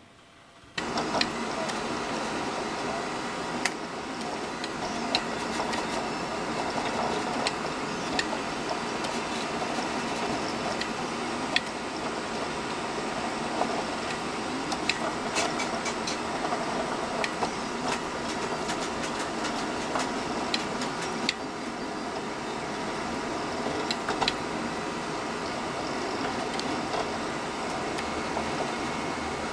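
Anycubic Predator delta 3D printer running a print, starting about a second in: a steady mechanical whir from its motors and fans, with scattered small clicks.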